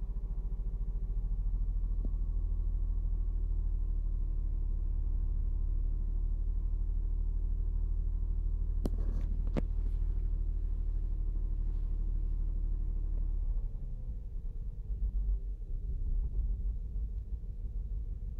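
2008 Saturn Outlook's V6 engine running with a steady hum. Two sharp clicks just before halfway. A little over thirteen seconds in, its pitch drops and the sound turns uneven, rising and falling, on an engine that has been throwing a cylinder 1 misfire code.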